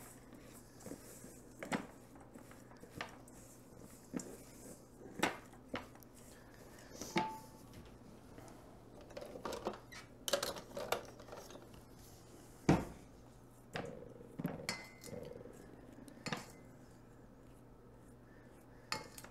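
Spatula and utensils scraping, clinking and knocking against a stainless steel mixing bowl while a crumbly oat-and-butter topping is mixed: irregular knocks and clinks, the loudest about two-thirds of the way through.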